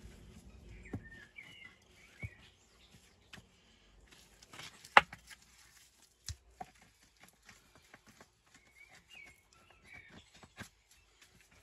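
Loose stones and rubble knocking and clattering as they are picked up and shifted by gloved hands, with one sharp stone-on-stone knock about five seconds in. A bird chirps in two short bursts in between.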